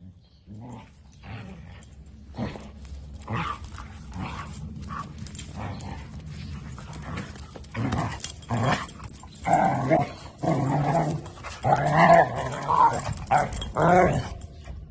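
Dog growling in play: a run of short throaty growls and grumbles that get louder about halfway through.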